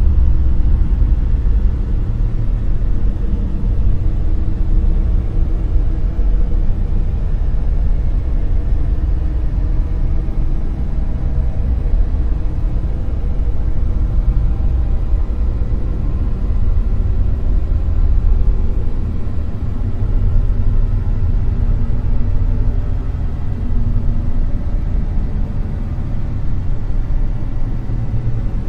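Dark noise sound effect: a steady, deep rumbling hiss weighted heavily to the bass with very little treble, swelling and easing only slightly in level.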